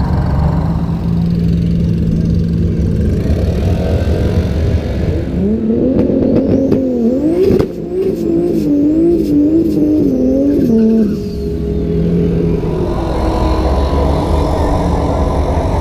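Nissan 240SX engine, which the Tesla owner takes for an RB25 turbo swap, idling, then revved up and down repeatedly for several seconds with a string of sharp cracks among the revs, before settling back to idle.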